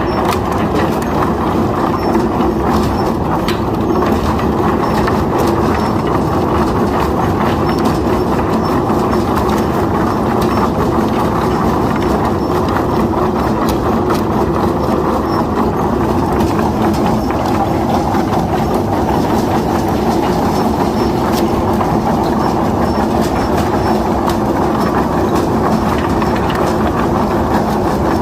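Dual-axis wood debarker running, its two rotating rollers turning steadily with a hum and frequent knocking and rattling as logs tumble against them and the bark is stripped.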